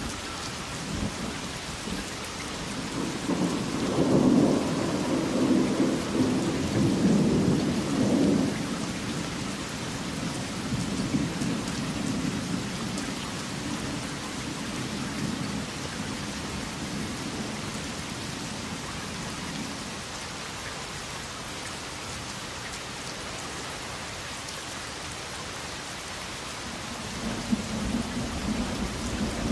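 Steady rain falling, with a roll of thunder that rumbles up a few seconds in, is loudest for several seconds, then slowly dies away; another low rumble of thunder begins near the end.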